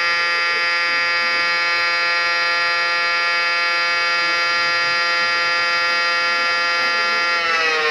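Outdoor warning siren sounding one steady tone, then starting to wind down, its pitch falling, near the end.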